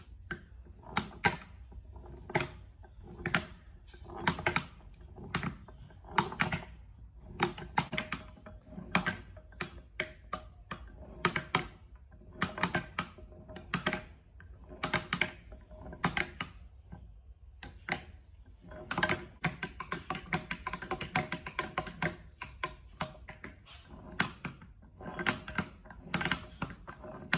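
Parallel-shaft speed reducer turned by hand at its universal-joint input shaft: a long series of light metallic clacks as the meshed spur gears and the joint take up play, each ringing briefly. The clacks come about one every half second to second, with a quicker run about two-thirds of the way through.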